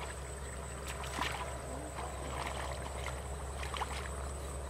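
Shallow muddy water splashing and sloshing in a few soft bursts as a person wades and gropes through it by hand. A steady high, thin tone runs underneath.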